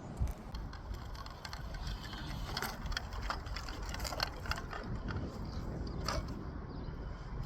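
Scattered clicks and light knocks of hard parts being handled, over a steady low rumble.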